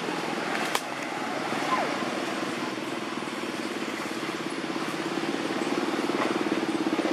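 Steady engine drone from a motor vehicle, pulsing evenly and growing louder toward the end, with a brief falling squeak a little under two seconds in.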